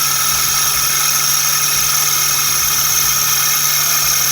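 Suzuki Every Turbo's three-cylinder engine idling with a steady high whine from a worn bearing, the fault that is then cured by replacing the bearing.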